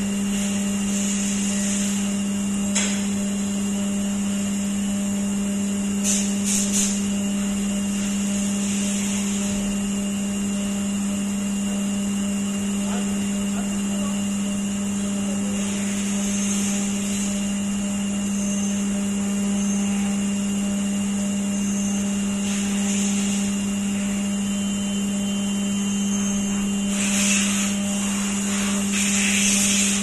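CNC vertical milling machine's end mill cutting a 6061-T6 aluminium block under flood coolant: a steady hum from the spindle and cut over a coolant hiss, with a few light clicks.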